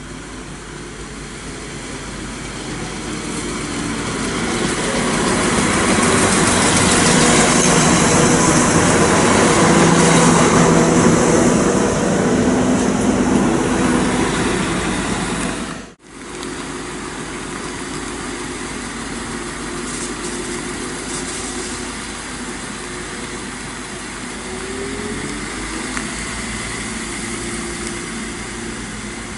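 Class 197 diesel multiple unit approaching and running past close by, its engines and wheels on the rails swelling to a loud peak and then easing off. After an abrupt cut, its engines run further off, steadily, with the pitch rising a little twice near the end as it pulls away.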